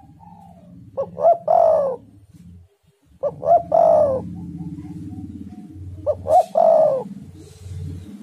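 Spotted dove cooing three times, each phrase two short notes followed by a longer drawn-out note, over a steady low background rumble.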